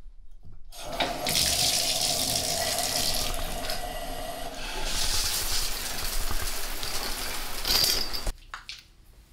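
Water rushing from a bathtub spout after the shower valve is turned on, starting about a second in. The sound of the flow shifts about halfway through, and it stops suddenly near the end.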